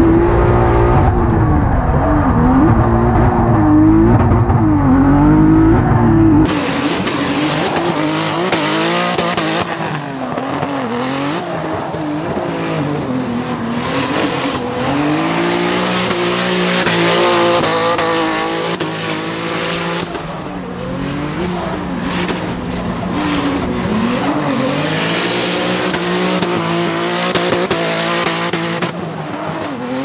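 The 3.8-litre twin-turbo V6 of a Hyundai Genesis Coupe drift car, revving up and down constantly on the throttle while its tyres squeal in a drift. For the first six seconds it is heard from inside the cabin, heavy with low rumble. It then switches suddenly to the brighter sound from outside the car.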